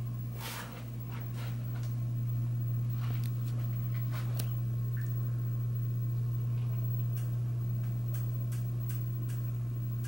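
Regency ceiling fan running: a steady low electric motor hum with irregular light clicks and ticks over it.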